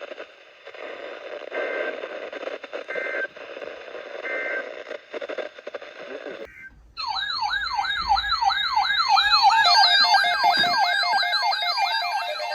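Crackly, choppy radio audio with a few short beeps, then, after a brief dropout about halfway through, a loud electronic siren starts. It is a fast rising-and-falling yelp, about three or four sweeps a second, layered with higher warbling alarm tones.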